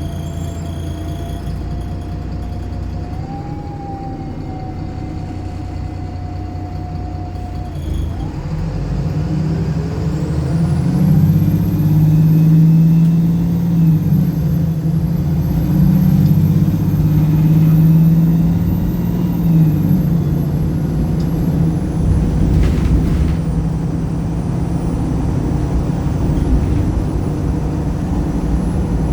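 Wright Pulsar single-deck bus engine heard from on board. It hums steadily, then from about eight seconds in it picks up and works hard for around ten seconds, louder, with a high whine rising alongside. After that it settles back to a steady cruising drone.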